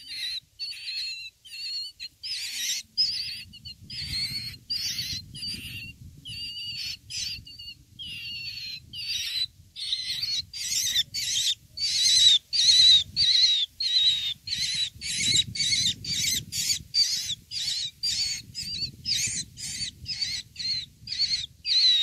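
Young, just-fledged myna calling over and over with short harsh calls, bill held wide open. The calls are irregular at first, then come about two a second and faster through the second half.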